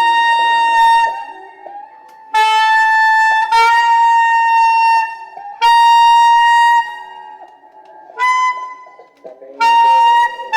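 Saxophone playing a series of held notes about a second long each, mostly on the same pitch, with short breaks between them. One shorter, slightly higher note comes about two-thirds of the way through.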